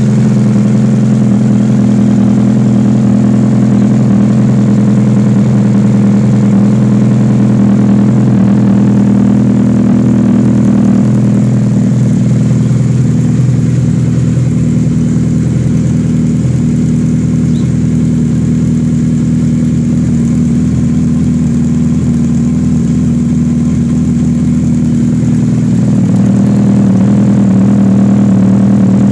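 A loud, steady machine drone with a low hum, easing a little in the middle and coming back up near the end.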